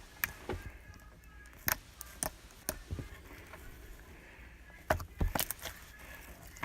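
Slime being squished and kneaded by hand, crunching with irregular sharp clicks and pops about every half second to second over a faint crackle.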